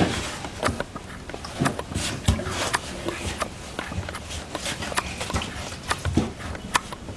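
Irregular light knocks and bumps of a small child shifting about on the wooden floor of a cabinet.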